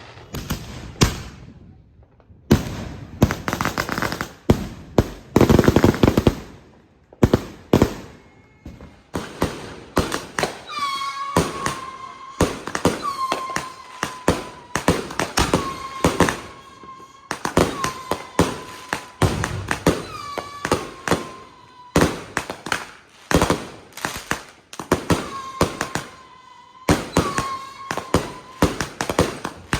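Consumer fireworks going off: a quick string of sharp bangs with a dense spell of crackling early on. From about a third of the way in, a short high whistling tone comes back every two to three seconds between the bangs.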